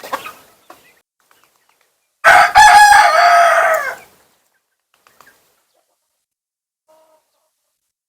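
A rooster crowing once, a loud call of about two seconds starting about two seconds in and dropping in pitch at the end, after a few faint clucks.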